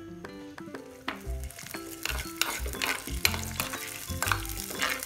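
Chopped ginger and garlic sizzling in hot oil in a clay pot, stirred with a spatula that scrapes against the pot. The sizzling and stirring pick up about a second in.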